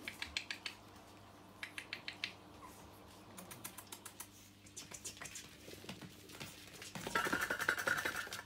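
Quick runs of light clicks and scratches from small puppies' claws as they scramble on a quilted pad over a wooden floor. The clicking grows louder and denser near the end.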